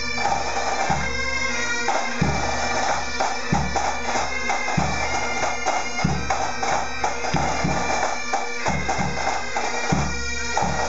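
Bagpipes playing a tune over their steady drones, with a bass drum beating along.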